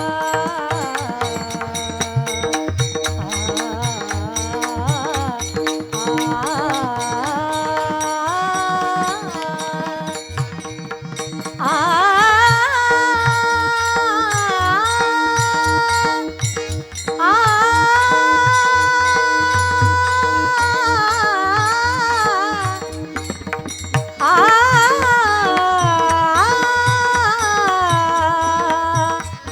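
A woman singing a Marathi devotional kirtan verse in a high voice, holding long notes that grow loudest in three stretches in the second half. Under the singing run a steady drone and hand-drum strokes.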